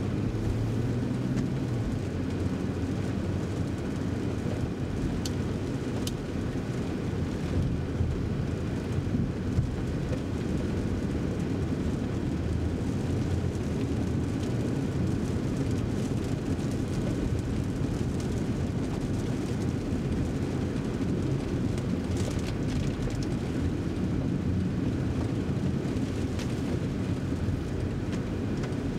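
Inside the cabin of a BMW M340i Touring driving slowly on wet city streets: a steady low rumble of the turbocharged 3.0-litre inline-six engine mixed with tyre and road noise from the wet tarmac.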